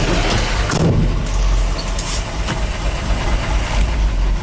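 1973 Ford F-250's 360 V8 running loud, heard from inside the cab, sounding like a diesel; the engine dies near the end. The owner hears upper engine noise in it and suspects the oil pump is not pumping enough.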